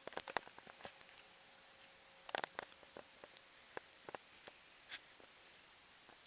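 Scattered faint clicks and light taps, with a short cluster of them about two and a half seconds in.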